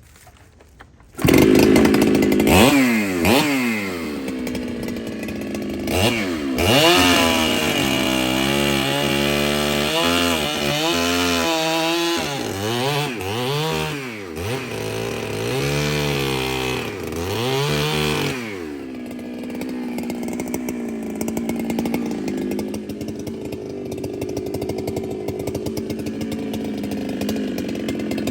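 Ported Husqvarna 395 two-stroke chainsaw bursting into sound about a second in. It is revved up and down repeatedly, then runs at a steady speed from about 18 seconds on.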